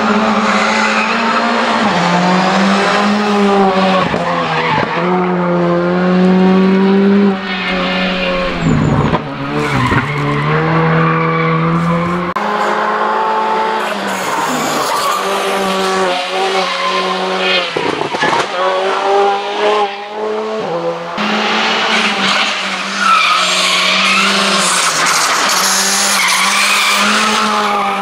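Rally car engines revving hard and changing gear, the pitch repeatedly climbing and dropping, with sudden changes of car or shot about twelve and twenty-one seconds in.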